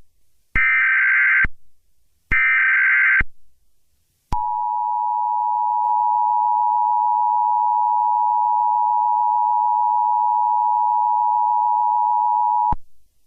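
Emergency Alert System SAME header: two one-second bursts of buzzy digital data, a short gap, then the EAS two-tone attention signal (853 and 960 Hz together) held steady for about eight seconds before it cuts off. This signals the start of an emergency alert broadcast.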